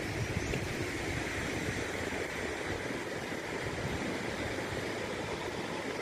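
Steady surf from waves breaking on a sandy shore, with wind buffeting the microphone.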